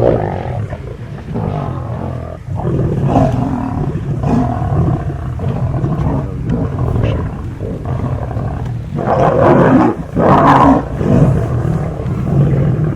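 A large pride of lions feeding, their overlapping calls running without a break, loudest from about nine to eleven seconds in.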